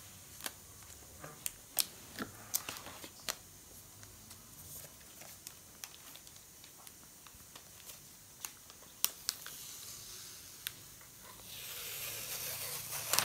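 Packaging being handled and torn open while unboxing a MacBook: scattered sharp clicks and crinkles, then a longer tearing, rustling sound near the end.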